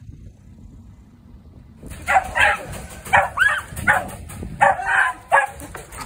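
Dog barking in a quick run of about eight high yaps, starting about two seconds in.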